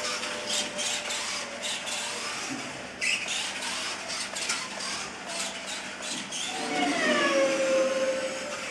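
Small electric motor of a Kyosho Mini-Z Buggy radio-controlled car whining as it laps a track, its pitch shifting with the throttle. There are short bursts of hiss, and a louder whine falls in pitch in the last few seconds.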